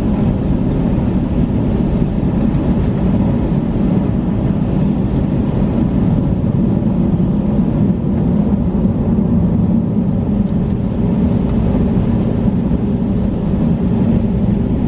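Steady low rumble inside an Airbus A321 cabin with the engines running before takeoff, the engine and air-conditioning noise holding even throughout.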